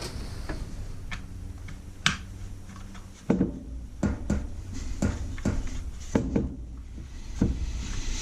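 Hands handling screws and small parts: scattered light clicks and knocks, sparse at first, then coming about twice a second from around three seconds in, with the sharpest knock there. A low steady hum runs underneath.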